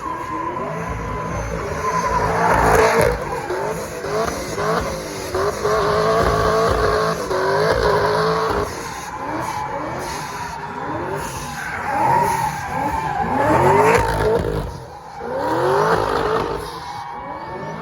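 Vehicle engine revving over and over in short rising bursts while its tires squeal and skid through slides. The squeal swells and fades several times.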